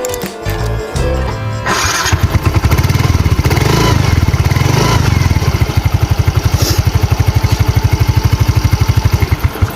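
Small motorcycle engine starting about two seconds in, then idling with a fast, even putter, over background music.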